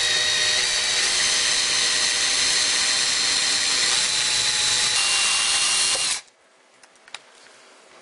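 Power drill with a small twist bit boring through the sheet-metal motherboard tray of a server case, drilling a hole for a standoff. It gives a steady motor whine over the grinding of the bit in the metal, and stops suddenly about six seconds in.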